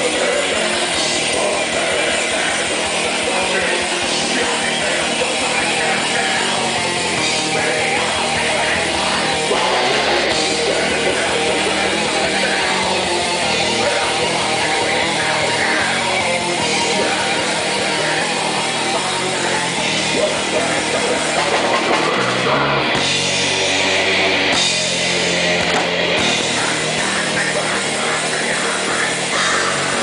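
Heavy metal band playing live: distorted electric guitars, bass and drum kit, with a vocalist singing into a microphone.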